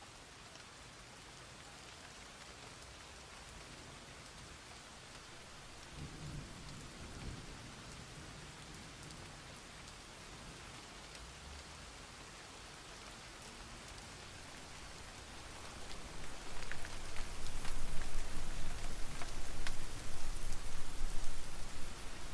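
Rain falling on open water, a steady patter of drops hitting the surface. About two-thirds of the way through, a much louder low rumble builds and carries on almost to the end, with sharper drop hits over it.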